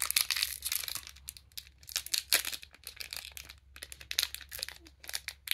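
One Piece card game booster pack wrapper being torn open and crinkled, in irregular bursts of crackling and rustling.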